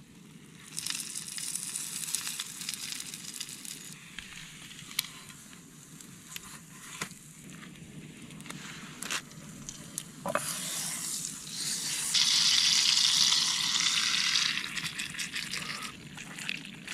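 Bread dough frying in a hot pan, a steady sizzle with occasional sharp pops. The sizzle swells louder for a couple of seconds about twelve seconds in.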